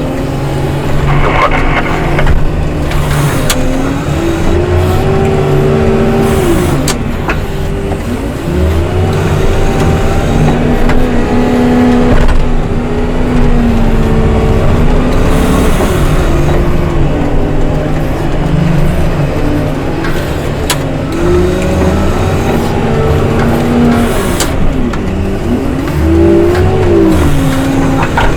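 Diesel engine of a snow-removal machine revving up and down again and again as it works, its pitch rising and falling in long swells every few seconds.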